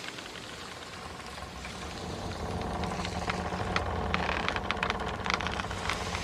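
Boat motor running with a steady low engine hum that grows louder about two seconds in and eases near the end, with scattered sharp clicks over it.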